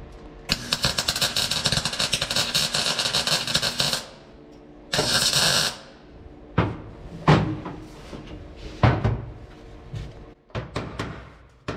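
Welding arc crackling steadily for about three and a half seconds as a new steel floor pan is tacked in, then a second, shorter burst. After that come a few separate hammer blows on the sheet metal and a run of quick taps near the end.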